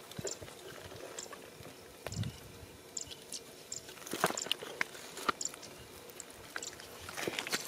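Bare hands digging into and breaking up damp, cracked mud: scattered crunches, squelches and small clicks of soil, busiest about four seconds in and near the end.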